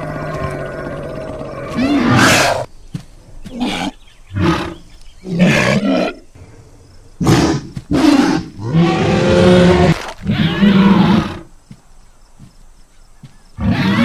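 Sound-effect dinosaur roars and growls for a pair of CGI Aucasaurus: a low steady growl at first, then a string of about eight separate roars, some short and some over a second long, with brief pauses between them.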